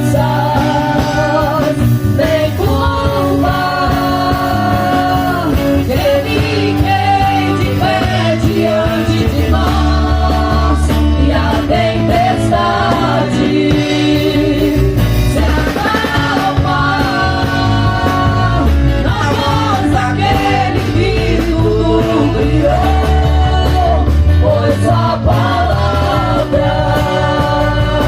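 Live gospel song: a singer holding long notes over a full band accompaniment.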